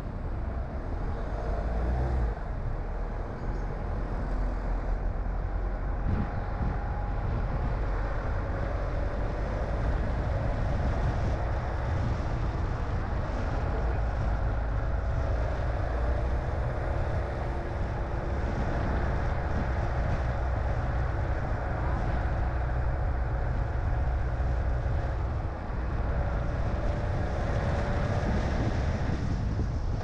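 Car being driven: steady engine and road noise, with a faint whine that drifts slightly in pitch. There is a brief dip in level about 25 seconds in.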